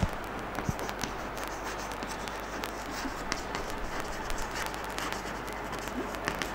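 Chalk writing on a chalkboard: a run of light taps and scratches as the words are written, with a sharper tap at the start, over steady room noise.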